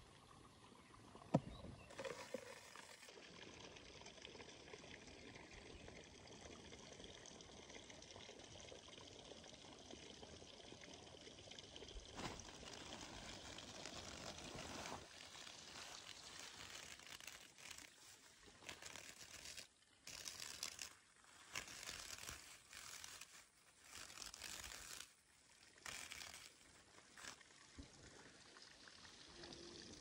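Faint steady trickle of water, joined in the second half by on-and-off crinkling of a plastic bag.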